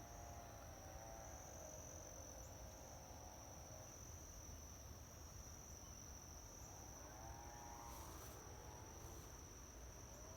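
Faint outdoor ambience dominated by an insect's continuous high-pitched trill, holding one steady pitch, over a low rumble.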